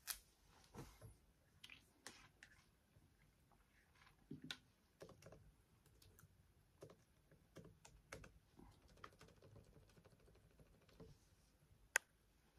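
Faint, irregular clicks and light taps from hands handling things, with one sharper click near the end.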